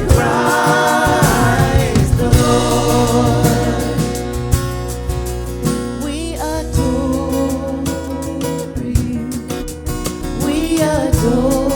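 Live worship music: singers' voices over a band with a steady drum beat.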